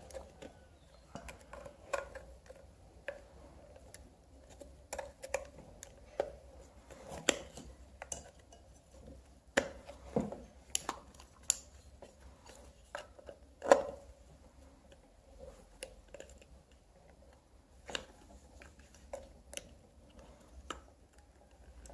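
Irregular clicks, scrapes and taps of a screwdriver working at a plastic lamp holder on a metal lamp base, with a few louder knocks about ten and fourteen seconds in.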